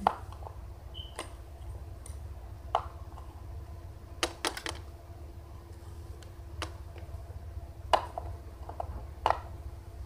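Light clicks and taps of small plastic Littlest Pet Shop toy figures being handled and set down on a toy set. The taps come a few at a time, with a quick cluster about halfway through, over a steady low hum.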